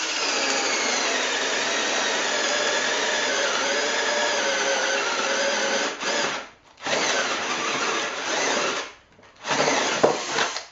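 Bosch 10.8 V lithium-ion cordless drill boring a 16 mm spade bit into timber: the motor whines under load, its pitch wavering as the bit chews through the wood. It runs steadily for about six seconds, then stops briefly twice and starts again.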